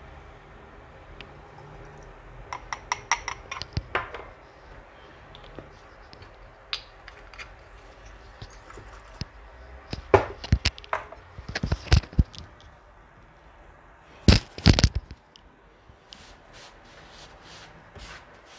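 Glass bottle and glass beaker knocking and clinking against a hard countertop as they are handled and set down, in three clusters of short sharp knocks: a few seconds in, around the middle, and again a few seconds later.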